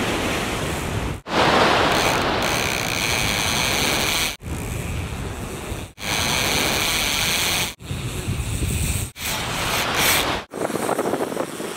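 Wind and sea noise on the beach, heard as a steady rushing hiss through seven short edited clips, each cut off abruptly.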